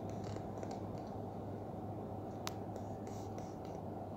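Room tone through a phone microphone: a steady low hum with faint rustling of the phone being handled, and one sharp click about two and a half seconds in.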